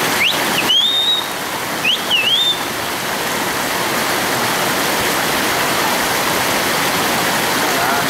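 Waterfall rushing steadily. Two short, high-pitched, gliding squeals or whistles sound over it in the first two and a half seconds.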